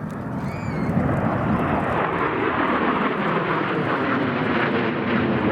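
Airplane flying past overhead: its engine noise swells over the first second, then stays loud and steady.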